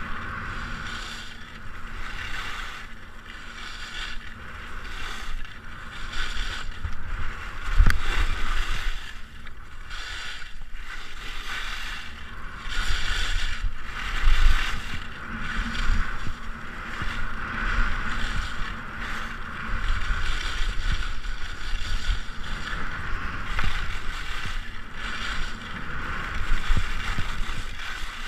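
Skis scraping and hissing over hard-packed piste snow at speed, the sound swelling with each turn about once a second. Wind buffets the microphone with a low rumble, in strong gusts a couple of times.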